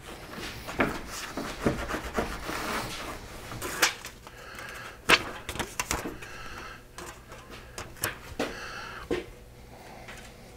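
A cloth rag rubbed over a plastic bumper, then a strip of aluminium foil tape handled and peeled from its backing, crinkling with a run of sharp crackles.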